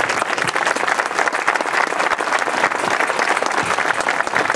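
An outdoor audience applauding steadily with dense hand-clapping, welcoming a speaker to the microphone.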